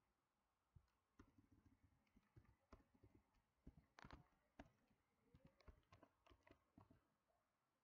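Faint typing on a computer keyboard: irregular keystrokes, starting about a second in and stopping shortly before the end.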